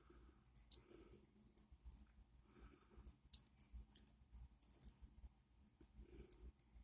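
Metal lock picks being handled and swapped between pick sets, giving faint, irregular light clicks and clinks.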